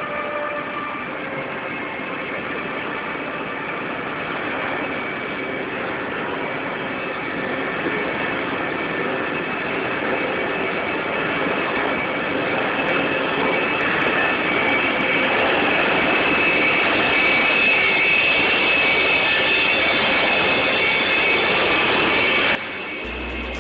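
ÖBB class 1116 Taurus electric locomotive approaching and passing close by at speed with its train: a steady rush of running noise with high whining tones over it, growing louder as it nears and breaking off abruptly near the end.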